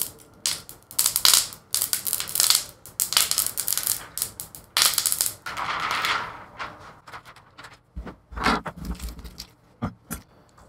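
Protective plastic film being peeled off the front of a newly fitted iMac screen, crackling and snapping in quick bursts for about six seconds. A few dull thumps follow near the end.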